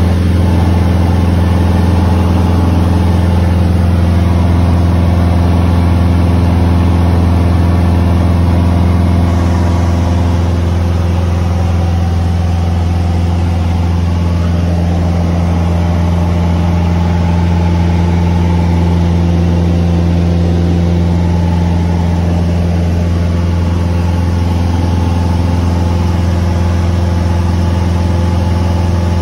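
Cessna 150's four-cylinder Continental O-200 engine and propeller in a steady climb-power drone, heard inside the cabin. The drone dips slightly about ten seconds in.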